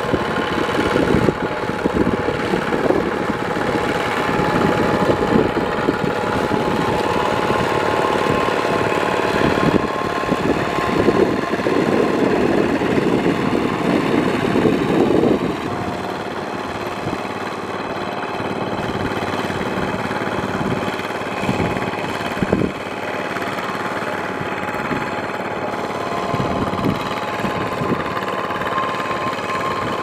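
Kubota ZT155 single-cylinder diesel engine on a two-wheel walking tractor, running steadily as it pulls its steel cage wheels through a flooded paddy field. The running is a little louder for the first half and drops slightly about halfway through.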